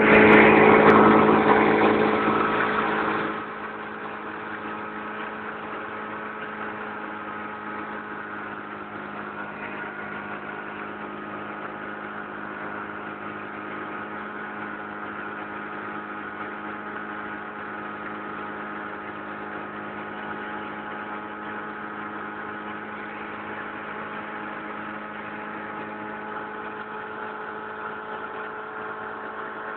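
1949 Johnson SD-20 16 hp two-stroke twin outboard motor running at a steady speed with the boat under way. It is louder for the first three seconds or so, then runs evenly.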